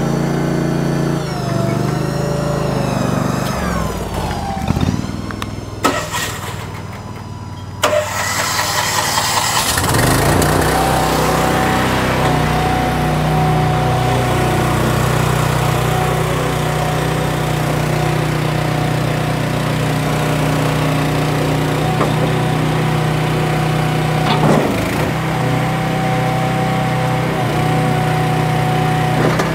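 A small engine running, then cutting off about five seconds in. A few seconds later an engine starts and settles into a steady run with a thin high whine over it, and there is a single clank late on.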